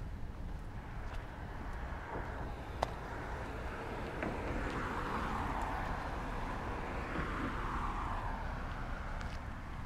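A car passing by. Its tyre and engine noise swells from about halfway through and fades near the end, over a steady low rumble.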